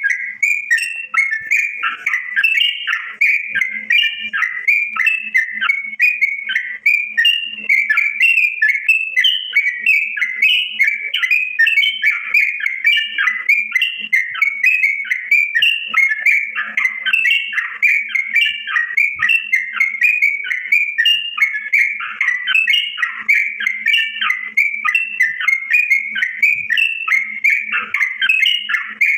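Green leafbird (cucak ijo) singing 'gacor', in full nonstop song: a fast, unbroken stream of varied whistled notes with no pauses.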